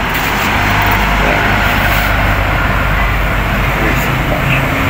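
Steady background traffic noise with a low engine hum.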